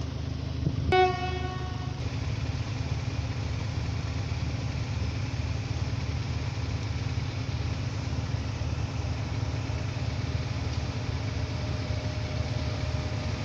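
Horn of a Bombardier Traxx E483 electric locomotive, sounded once as a short single-pitched blast about a second in, over a steady low rumble as the freight train with tank wagons approaches.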